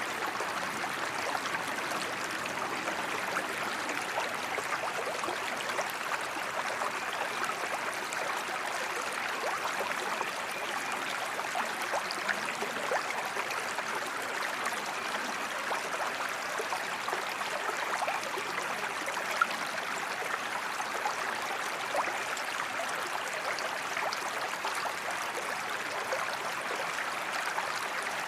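A creek flowing over stones: a steady rushing and babbling of water with small splashes and trickles scattered through it.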